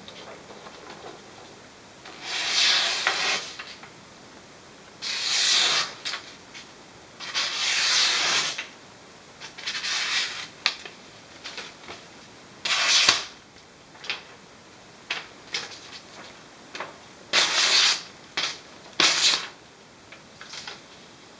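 Bolo knife blade slicing through sheets of paper: a series of papery, hissing cuts about a second long each, with shorter sharp snips in between.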